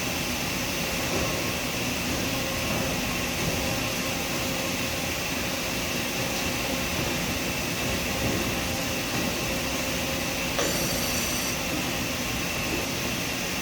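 Steady mechanical hum and whir of a machine shop, with a constant thin whine running through it. A short high-pitched chirp comes about eleven seconds in.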